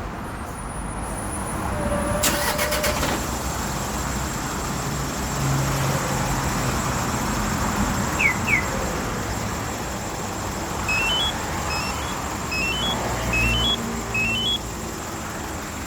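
Hyundai Mighty truck's diesel engine being remote-started after its glow-plug preheat, then idling with a steady low rumble; a burst of clicks and a rise in level come about two seconds in. Near the end the two-way remote starter gives short rising three-note electronic chimes, about five in a row.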